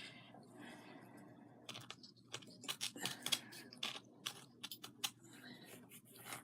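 Scattered light clicks and taps of small craft tools and pieces being handled on a work table.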